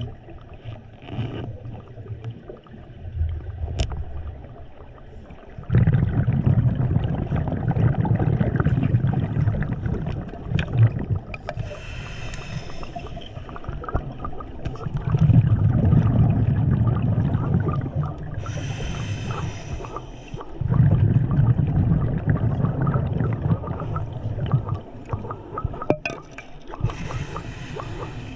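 Scuba diver breathing through a regulator underwater: a short hissing inhale, then a longer, louder bubbling exhale, repeating about every seven seconds.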